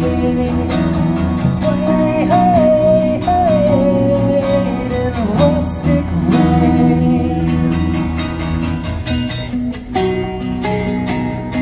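An acoustic guitar and a semi-hollow electric guitar playing a song together live, with a melody that slides up and down in pitch over steady chords.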